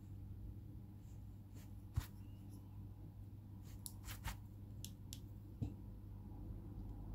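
Steady low room hum with a scattered handful of small sharp clicks and taps from handling acrylic nail tools, several bunched together around the middle.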